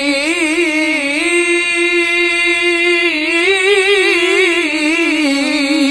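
A male qari holds the drawn-out final note of "ar-Rahim" in melodic Quran recitation (tilawah). It is one long sung note with wavering, ornamented turns in pitch, and it dips slightly near the end.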